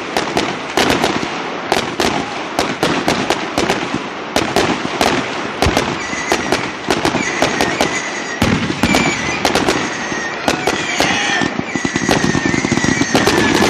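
A fireworks display with rapid, dense crackling and popping bursts. About halfway through, whistling shells join in with thin, slightly falling whistles.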